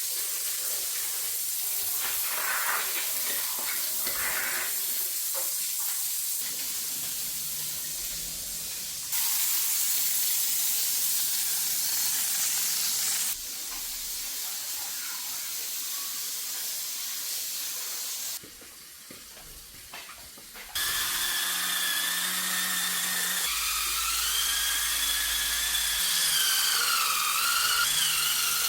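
Steady hissing noise in several cut-together stretches. In the last seven seconds a whining motor joins it, its pitch wavering up and down.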